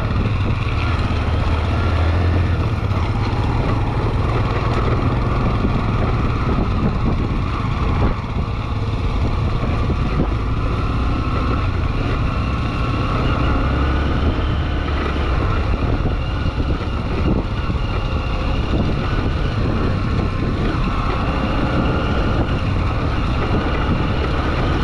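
Motorcycle engine running steadily while riding, mixed with wind rushing over the microphone.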